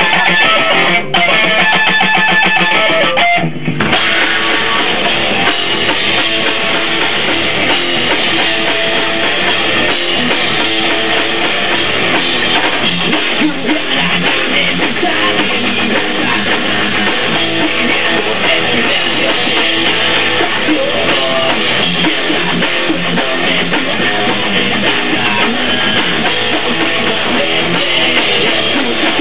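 Rock band playing loud heavy rock: distorted electric guitar over a drum kit, with a short break about three and a half seconds in.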